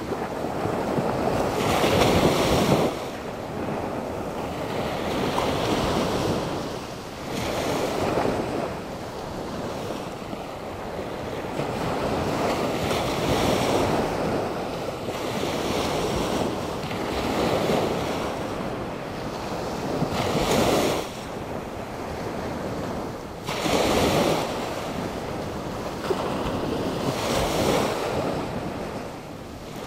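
Atlantic Ocean surf, rough under a passing hurricane's wind: a steady wash of water with waves breaking in louder surges every few seconds. Wind buffets the microphone.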